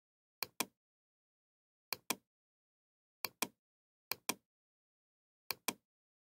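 Computer mouse clicked five times at uneven intervals. Each click is a quick double tick as the button is pressed and released.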